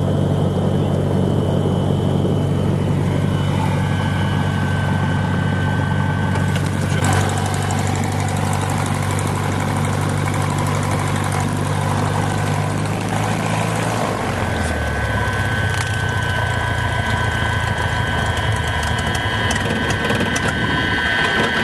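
Cessna 150's four-cylinder Continental O-200 engine and propeller running steadily during a landing approach, with the engine note dropping to a lower pitch about fourteen seconds in as power comes off. A thin, high steady whistle comes and goes over the engine.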